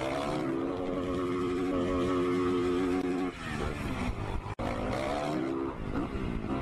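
Dirt bike engine revving hard and holding at high revs as the motocross bike accelerates. The revs drop a little past three seconds in, a sharp click comes about four and a half seconds in, and then it revs up again.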